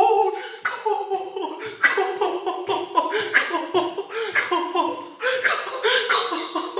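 A man yelling and cheering in celebration of his team's goal: a loud, unbroken string of short excited cries.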